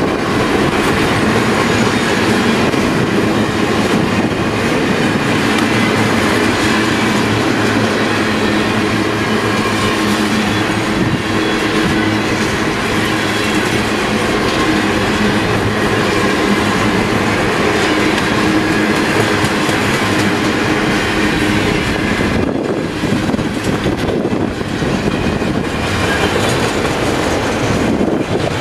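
Freight cars (tank cars, then autoracks) of a long freight train rolling past close by: a steady, loud noise of steel wheels running on the rails, with faint ringing tones over it and a couple of brief dips in the noise near the end.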